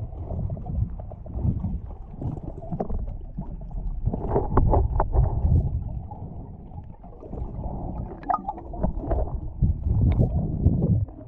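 Muffled underwater rumble of rough sea surging around a GoPro submerged among kelp, with scattered clicks and crackles.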